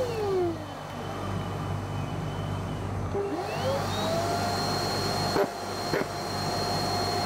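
Dust-extracted orbital sander winding down to a stop, then about three and a half seconds in spinning back up to a steady whine as it sands primer with 320-grit paper to knock down orange peel. The dust extractor hums steadily underneath, and two short knocks come near the end.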